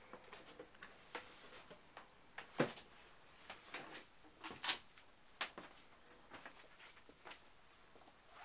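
Faint, irregular clicks and knocks, with two louder knocks about two and a half and four and a half seconds in.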